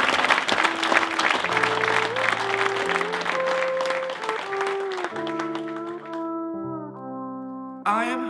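Audience applauding, thinning out over the first five or six seconds, under slow music of long held notes moving step by step. The music settles into sustained chords, and a different music track starts near the end.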